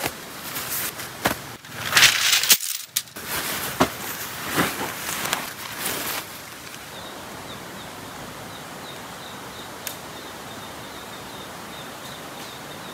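Irregular rustling and handling noises from pitching a tent for the first six seconds or so, with a brief gap partway through. After that comes a steady outdoor hiss with a faint run of small high ticks.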